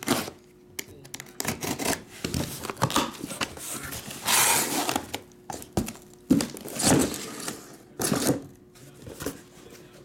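Cardboard shipping box being handled and unpacked: irregular rustling, scraping and knocks as the small boxes of trading cards inside are pulled out and set down one on another.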